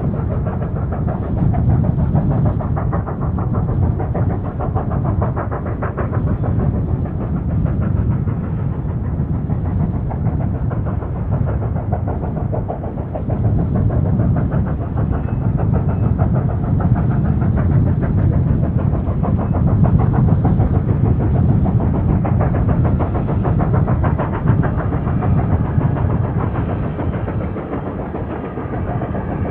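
JS-class 2-8-2 steam locomotive working hard at the back of a heavy spoil train on a steep grade, heard from afar as a low, steady rumble that swells and eases every few seconds.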